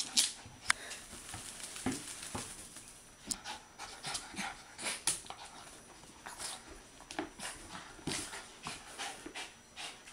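A Pomeranian rubbing and turning itself on a hardwood floor and a towel to dry off after a bath: irregular quick scuffs, rustles and clicks, with some panting.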